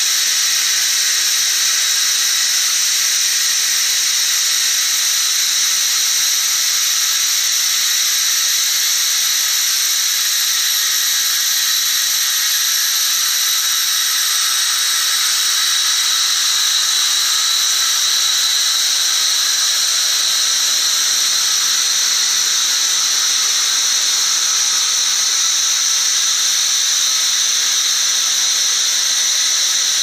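Pressurised gas, the CO2 of a rocket cold-flow test rig, rushing out in a loud, steady, high hiss with a whistling edge, while the rig's tank pressure bleeds down.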